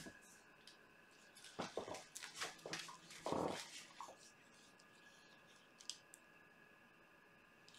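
Faint handling sounds of gloved hands picking up a paint cup and stirring the brown acrylic paint with a stick: a cluster of short scrapes and taps in the first half, the loudest about three seconds in, then only faint room tone.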